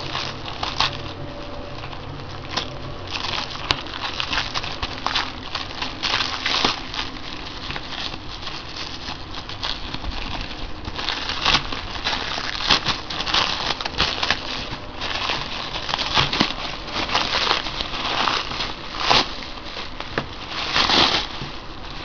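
Thin plastic shrink wrap crinkling and crackling as it is pulled and crumpled by hand, in irregular crackles that get busier in the second half.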